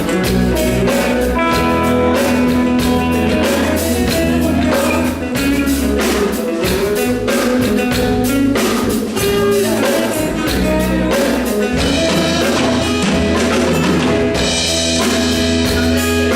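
A live band playing with no vocals: guitar over bass and a drum kit keeping a steady beat.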